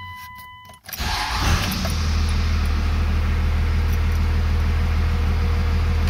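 24-valve Cummins 5.9 L turbo-diesel with VP44 injection pump cranked and firing about a second in, catching quickly without a long crank, then idling steadily with a strong low hum.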